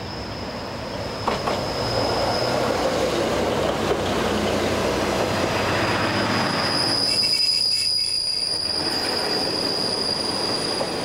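Diesel train rolling slowly past close by, with rumbling running noise and a steady high-pitched squeal from the wheels on the rails. The noise gets louder about a second in, with a couple of knocks as the cars come alongside.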